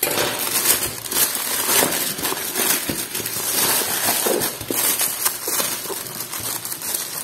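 Thin plastic courier mailer bag crinkling and crackling without pause as hands tear it open and pull a cardboard box out of it.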